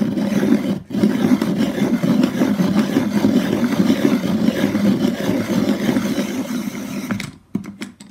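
Hand-crank pencil sharpener grinding a coloured pencil, a steady rasping whir with a brief break just under a second in. It stops about seven seconds in, followed by a few light clicks. The sound shifts slightly as the pencil nears a finished point.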